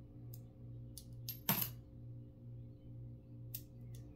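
Lincoln cents clicking against each other as they are handled and set down: a few light clicks and one louder clink with a short ring about a second and a half in, over a steady low hum.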